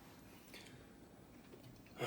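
Near silence: room tone with a couple of faint small clicks.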